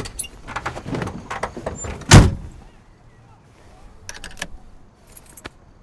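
Car door opened and shut with one heavy thud about two seconds in as someone gets into the driver's seat of an old car. A few light clicks follow.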